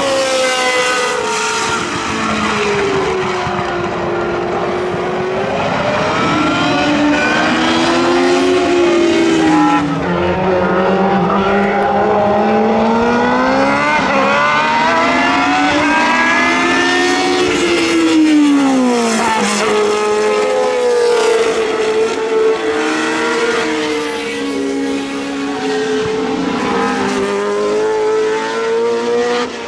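Historic Formula 1 cars running at racing speed, their high-revving engines rising and falling in pitch through gear changes, with two or more cars heard at once at times. About eighteen seconds in, one car passes close with a sharp rise then drop in pitch.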